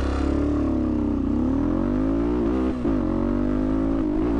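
A single-cylinder 230 cc TBR7 dual-sport motorcycle engine, fitted with a performance camshaft, accelerating hard. The revs climb several times, each climb broken by a brief drop. The rider says the launch bogged because he opened the throttle too fast for the lean carburettor, which has no accelerator pump.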